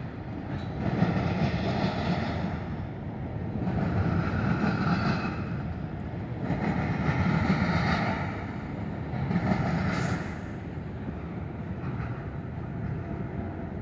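Freight train of autorack cars rolling past: a steady rumble of wheels on rails that swells and fades about every three seconds, easing off after about ten seconds.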